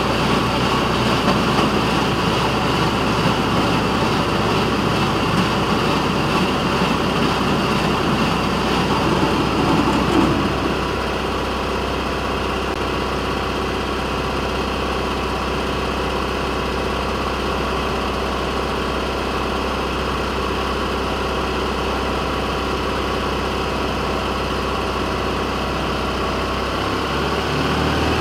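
Railroad motorcar (speeder) running along the track, its engine mixed with rolling wheel-on-rail noise. About ten seconds in, the rolling noise drops away and the engine settles to a steady idle as the car stands.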